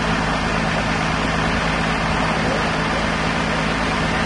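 Large crane's diesel engine running steadily.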